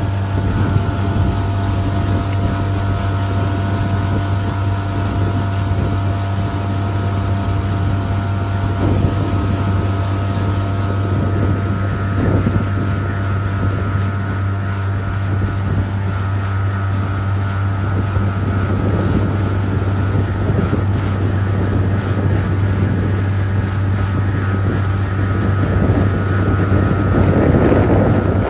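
Gheenoe's outboard motor running steadily at a constant speed with the boat under way, with wind noise on the microphone.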